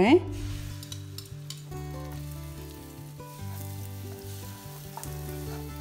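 Beaten eggs sizzling in hot oil in a frying pan while a spatula stirs and scrambles them, under soft background music.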